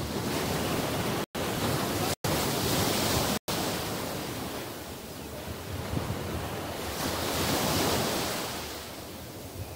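Small waves breaking and washing up on a sandy beach, with wind on the microphone; the surf swells louder twice. The sound cuts out for an instant three times in the first few seconds.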